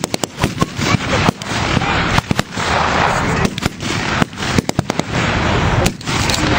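Blank-firing rifles and machine guns in a mock battle: sharp shots, some single and some in quick runs of several, going on throughout.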